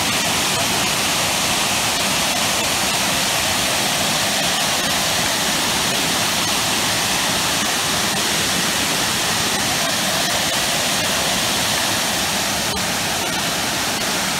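Waterfall plunging into a rock pool: a steady rush of falling water.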